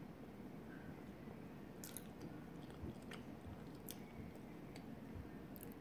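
A person quietly chewing food, with a few faint sharp clicks.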